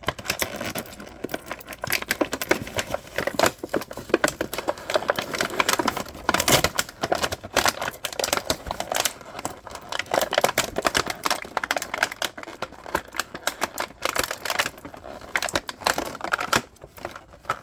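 Plastic toy packaging being handled: a dense, irregular run of clicks, crinkles and rustles as action figure parts are worked free of the box's plastic tray.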